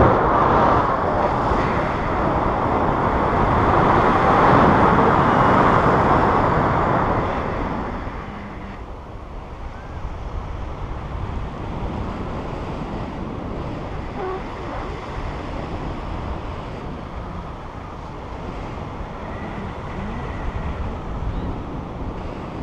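Airflow rushing over the microphone of a pole-mounted action camera during paraglider flight. The rush is loud for the first several seconds, then eases to a lower steady level about eight seconds in.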